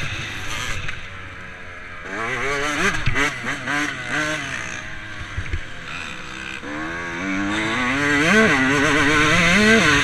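Dirt bike engine revving up and down as the throttle is opened and closed. It eases off about a second in and again around five seconds, then climbs steadily and is loudest near the end.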